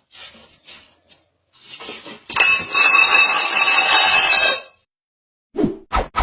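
A loud crash with clinking and ringing, as of hard objects like dishes falling and clattering, lasting about two seconds, followed by three short thumps near the end.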